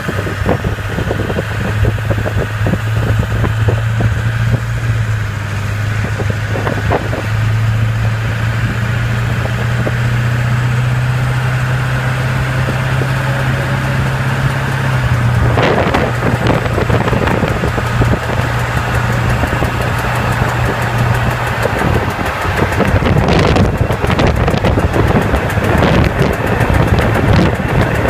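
Truck with a 7.3-litre engine driving at about 40 mph, with a strong low drone that shifts in pitch a few times and fades out about three-quarters of the way through, leaving rougher road and wind noise. The owner hears it as a tire with a flat spot. He places it in the transmission or driveline, since it comes only under load above 35–40 mph and goes away when coasting or at idle.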